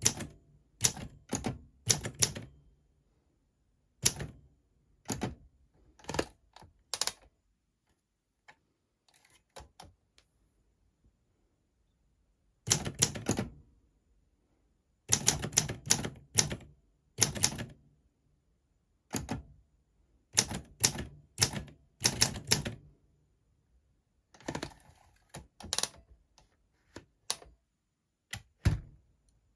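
Olympia SM4 manual typewriter being typed on: quick runs of sharp key strikes in bursts, broken by short pauses and one longer lull of several seconds about a third of the way in.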